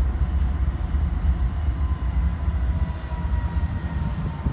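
BNSF diesel locomotives approaching at speed with a steady low rumble. A faint high whine drifts slightly down in pitch partway through.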